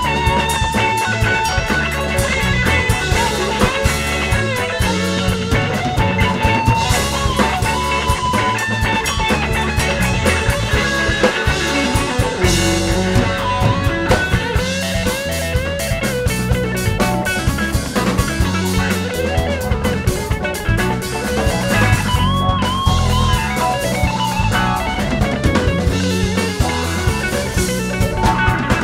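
Live band playing an instrumental passage: electric guitars over bass and drum kit, with a lead line bending up and down in pitch.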